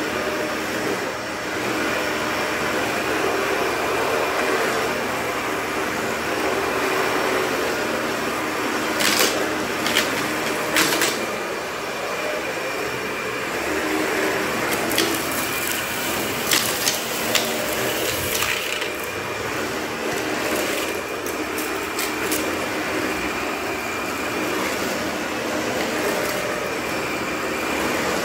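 Dyson upright vacuum cleaner running steadily on bare concrete. From about a third of the way in to past the middle there is a cluster of sharp clicks and crackles as grit and small debris are sucked up.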